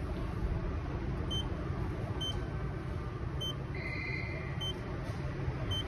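Touchscreen ticket vending machine beeping as keys are pressed: five short high beeps about a second apart, with a longer, lower tone in the middle, over a steady low hum.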